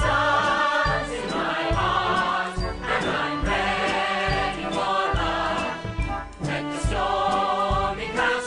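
Show-tune music from a stage musical: a group of voices singing over a band with a steady beat.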